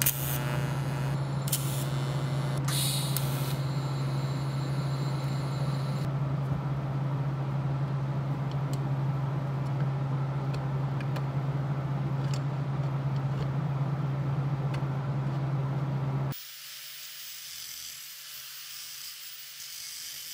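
Wire-feed (MIG) welder arc crackling and sizzling for the first several seconds over a steady low hum, which carries on after the crackle stops. About sixteen seconds in the hum cuts off suddenly, leaving a quieter, high hiss.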